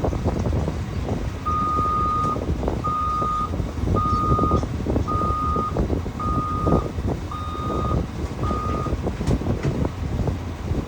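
A vehicle backup alarm beeping seven times in an even rhythm, about one beep a second, over a loud, steady low rumble.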